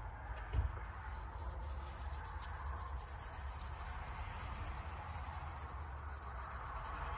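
Faint rubbing and handling of gold leaf being pressed onto a painted metal plate, over a steady low rumble. There is a soft thump about half a second in, and a rapid high ticking in the background from about two seconds in.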